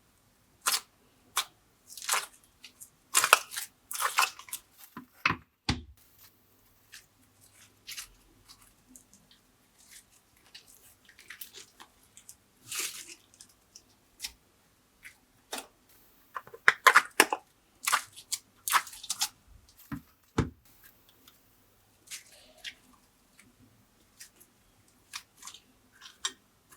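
Slime being pressed and worked by hand, giving irregular sticky crackles, pops and clicks, some in quick clusters.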